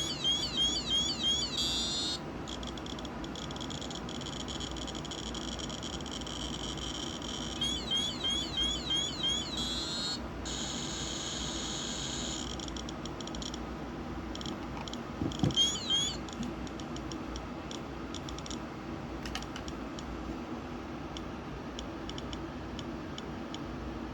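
Radiation detector clicking as it counts radiation from a smoke detector's americium-241 source, with three bursts of rapid chirping tones: one at the start, one about eight seconds in and a short, loudest one near sixteen seconds. A steady low hum runs underneath.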